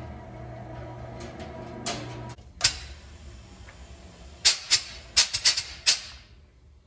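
Sharp metallic clicks from valve springs being compressed and their retainers and keepers freed on a 1969 Mopar 440 cylinder head: two single clicks, then a quick run of about six near the end. A steady low hum cuts off about two seconds in.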